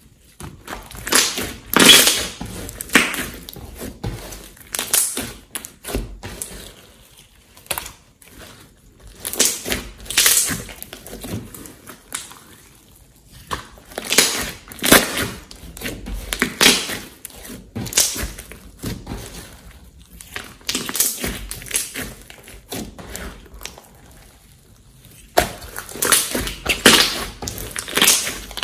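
Hands kneading, squeezing and stretching a large lump of glossy slime, giving wet squishing and popping noises in irregular bursts every second or two.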